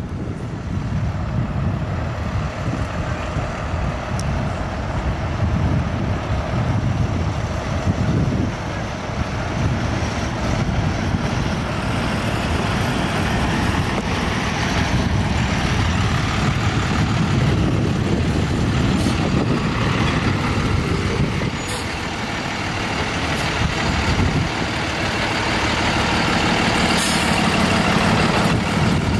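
Diesel engine of a medium-duty box truck running close by, settling into a steadier, louder idle hum in the last few seconds.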